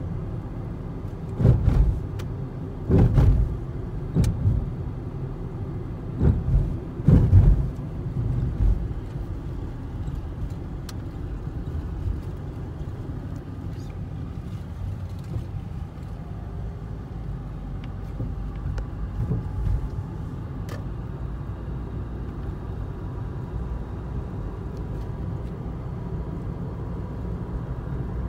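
Steady low rumble of a car driving, heard from inside the cabin, with several loud, short thumps in the first eight seconds.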